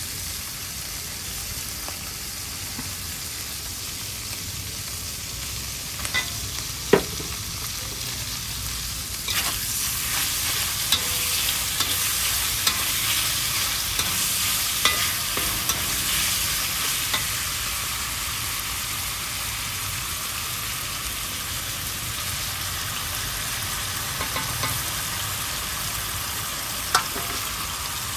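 Vegetables frying in hot oil: a steady sizzle that grows louder about a third of the way in and eases off after about 17 s. It is dotted with occasional sharp knocks and clicks, like a stirring utensil striking the pan.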